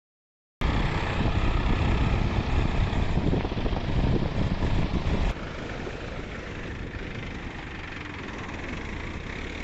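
A farm tractor's diesel engine running close by, coming in suddenly about half a second in and cut off about five seconds in. A quieter, steady wash of sea surf follows.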